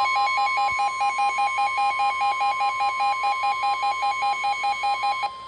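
Emergency alert tones for a severe thunderstorm warning: a steady high tone with a fast pulsing tone over it, about five pulses a second. The pulsing stops shortly before the end while the steady tone carries on.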